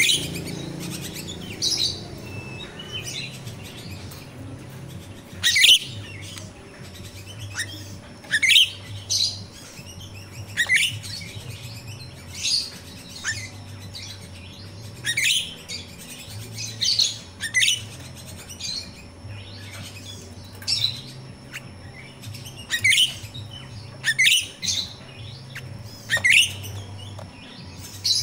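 Grosbeak starling (jalak rio-rio) calling: short, sharp chirps that drop steeply in pitch, repeated every second or two.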